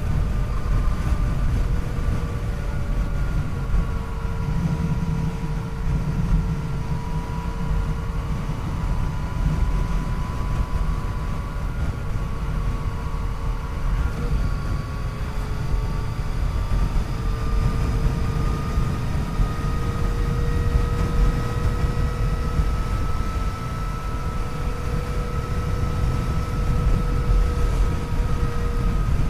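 Yamaha FJ-09's three-cylinder engine running steadily under way, its note drifting gently up and down with the throttle, over heavy low wind rumble.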